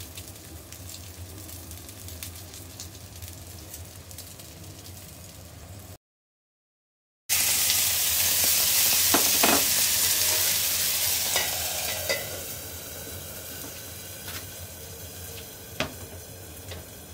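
Ham slices and two eggs sizzling in a cast-iron skillet, a steady hiss with small crackles. After a brief cut the sizzle returns much louder, then eases off over a few seconds, with a sharp knock near the end.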